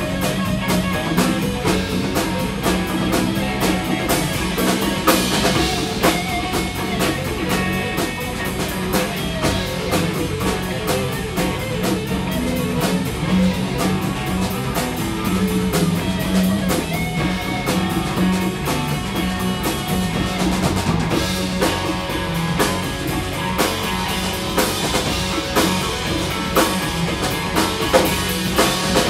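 Live rock band jamming: two electric guitars, electric bass and a drum kit playing together with a djembe, the drums keeping a steady beat throughout.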